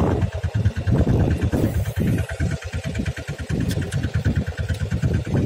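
Fishing boat's engine running steadily at low speed, with a fast even throb.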